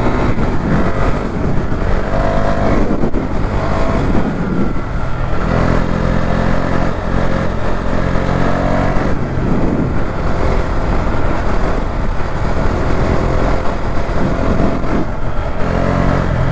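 KTM motorcycle engine on its stock exhaust under way, its pitch rising and falling several times with throttle and gear changes, over a steady rush of wind.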